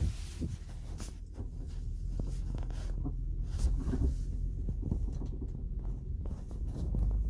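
Cellphone microphone handling noise, irregular rubbing, scraping and small knocks as the phone is moved about, over the steady low rumble in the cabin of a 2007 Infiniti FX35.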